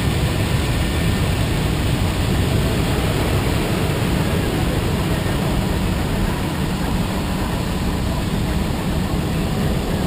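Steady low rumble and noise of a moving vehicle, heard from on board.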